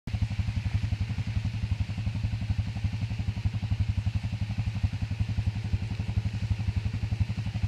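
Small engine on an ATV fire-suppression rig idling with a fast, even putter.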